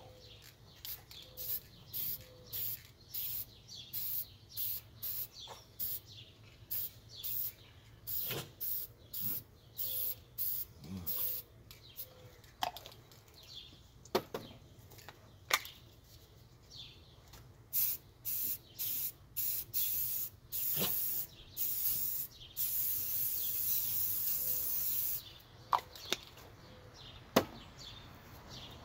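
Aerosol spray-paint cans hissing in many short bursts in quick succession, then one longer spray of about three seconds near the end. A few sharp clacks fall between the bursts.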